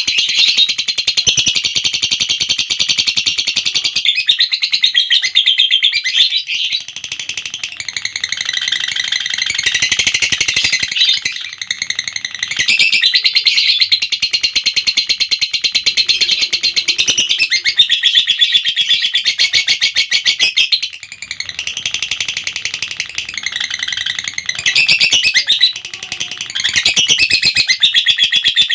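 Lovebird giving a long 'ngekek' song: a rapid, high-pitched chattering trill that runs almost unbroken, with a few short breaks.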